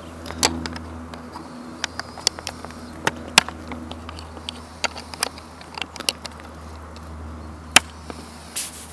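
Hard attachment plates of a split monoski binding kit clicking and knocking against the board and its fittings as they are pressed and slid into place by hand. About a dozen sharp, irregular clicks, the loudest one near the end, over a steady low hum.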